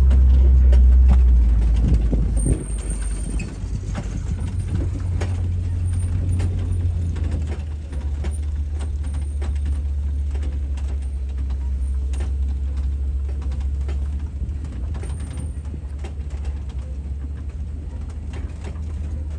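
Open-air safari truck driving along a rutted dirt track, heard from on board: a steady low engine rumble with scattered rattles and knocks. The rumble is louder for the first couple of seconds, then settles lower.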